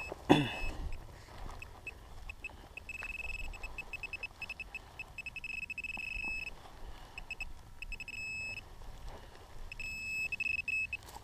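Metal-detecting pinpointer beeping as it is probed around a dug hole, signalling metal in the soil. It is a high, single-pitched tone that comes as short chirps and longer steady beeps, stopping and starting as the probe moves. A brief low thud sounds right at the start.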